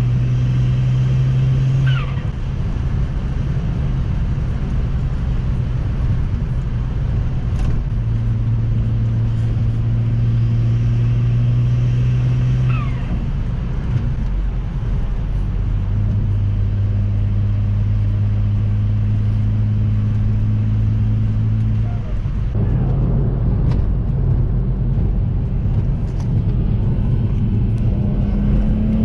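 BMW N54 twin-turbo straight-six running under way at a steady engine speed, its hum breaking and settling lower three times. The pitch climbs near the end, with two brief falling whistles along the way.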